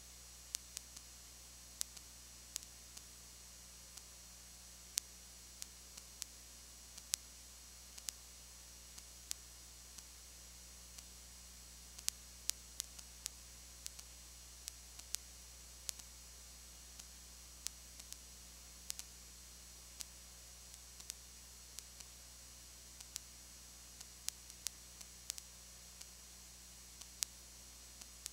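Steady faint hiss and low hum, broken by irregular sharp clicks about one or two a second. This is noise of the recording itself, with no sound from the game.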